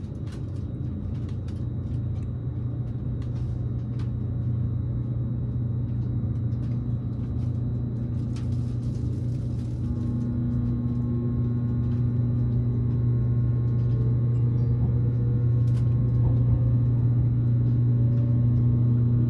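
Electric limited express train pulling away from the station, heard from inside the passenger car. A steady low rumble grows gradually louder, with a few light clicks in the first seconds. From about ten seconds in, a faint rising whine comes in as the train gathers speed.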